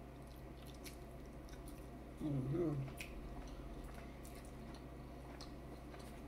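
Person chewing food from a seafood boil, with faint wet clicks and smacks, and a brief vocal sound about two seconds in.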